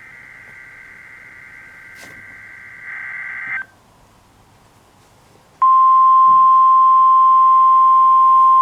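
NOAA Weather Radio test transmission: a buzzy digital SAME/EAS header data burst for about three and a half seconds, then a brief gap of faint radio hiss, then the loud, steady single-pitch 1050 Hz weather radio alert tone starting about five and a half seconds in.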